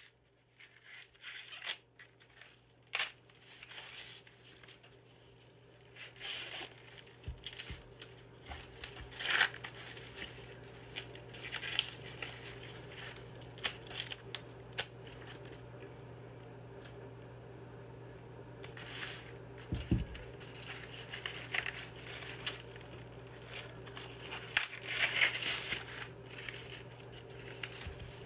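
Fresh ears of corn being husked by hand: green husks and silk torn and peeled away in repeated irregular tearing and crackling rasps.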